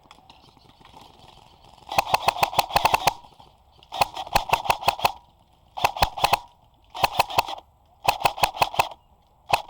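Airsoft gun firing on full auto in six bursts, about ten shots a second, each burst lasting half a second to a second.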